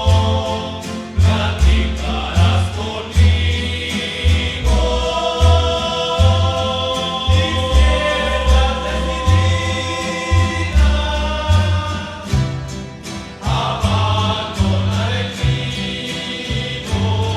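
A rondalla, a group of voices singing a romantic ballad in harmony over strummed guitars and a walking bass line.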